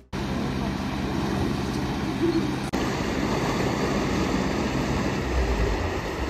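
Steady outdoor rumble with a faint low hum, cut off for an instant about two and a half seconds in.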